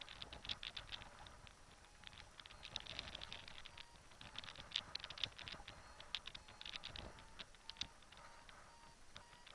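Riser-mounted camera and paraglider riser fittings rattling in flight: faint, irregular quick light clicks and ticks that come in flurries, the sharpest about halfway through, over a low hiss.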